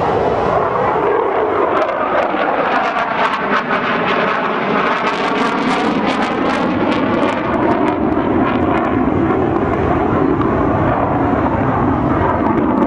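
Steady, loud jet noise from a HAL Tejas fighter's GE F404 turbofan during an aerobatic pass. Midway it takes on a sweeping, phasing whoosh as the jet moves across the sky.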